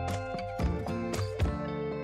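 Background music with a steady beat: sustained notes over regular, sharp percussive hits.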